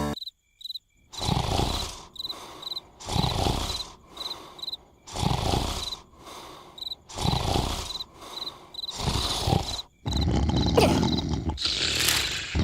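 Cartoon snoring: slow, loud snores about one every two seconds, over crickets chirping steadily. About ten seconds in the snoring turns into a louder, more continuous rumble.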